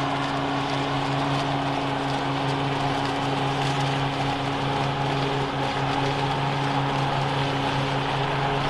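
Toro TimeMaster 30-inch walk-behind mower's engine running steadily as it mows and bags fallen leaves, with a steady hum over blade and grass noise.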